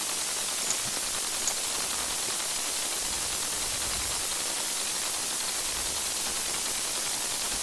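Steady hiss of a microphone's noise floor, with two faint mouse clicks about a second in.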